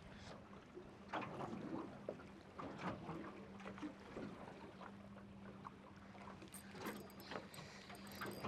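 Faint lapping of water and small scattered knocks and splashes around a small boat, over a steady low hum.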